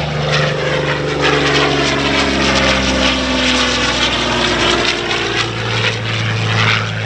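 Curtiss P-40N Warhawk's Allison V12 engine and propeller passing low and fast, the engine note falling steadily in pitch as it goes by.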